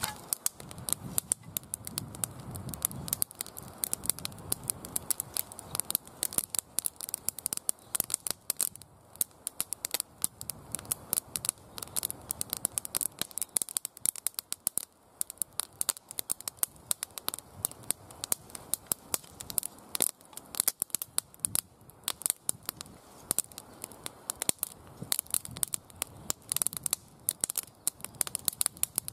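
Small wood fire of split kindling and dry grass tinder crackling, with a dense, irregular stream of sharp pops and snaps.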